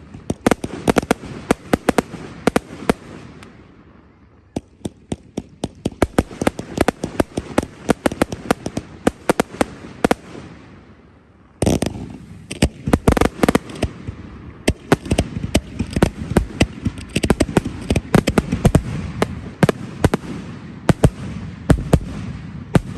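Fireworks display: rapid bursts of bangs and crackling shells going off in quick succession, easing twice and then coming back in a sudden louder barrage about halfway through, typical of a finale.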